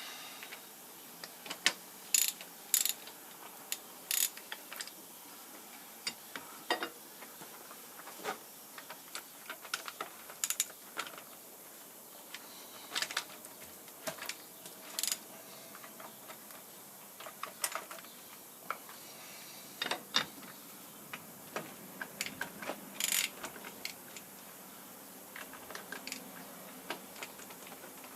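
Irregular metallic clicks, clinks and knocks from hand work on the cast iron parts of an old metal shaper's clapper box and cross slide during disassembly, with a few louder knocks scattered through.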